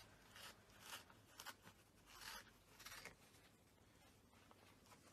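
Faint, short scratchy rasps, a handful in the first three seconds and quieter after: a cat licking and chewing at a honeysuckle-and-catnip pouch toy held in its paws.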